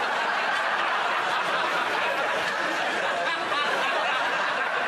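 Studio audience laughing steadily throughout.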